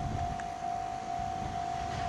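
Japanese railway level-crossing alarm ringing, one electronic bell tone repeating about twice a second, with a low rumble underneath.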